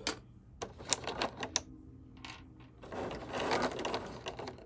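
Clear plastic blister tray crackling and clicking as small figure parts are pulled out of it: a few sharp clicks in the first two seconds, then a longer stretch of crinkling from about three seconds in.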